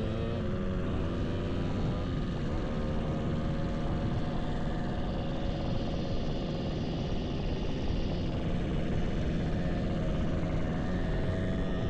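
Motorcycle engine running at a steady speed while riding, with wind and road noise; the engine pitch dips slightly near the start, then holds.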